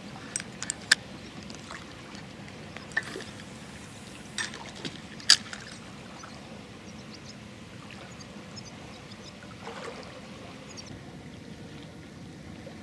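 Gentle water lapping at a concrete bank, a steady soft wash, with a few sharp clicks and taps as the feeder rod and reel are handled; the loudest click comes about five seconds in.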